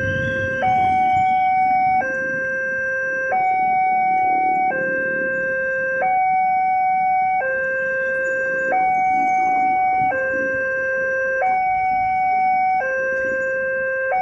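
Railroad crossing's electronic warning alarm sounding a steady two-tone hi-lo signal, each tone held about a second and a third, with road traffic underneath. This is the warning that the crossing is closed for an approaching train.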